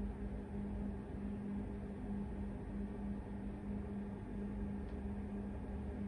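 Steady low machine hum with a constant drone and a faint rumble beneath, as from equipment running in the room.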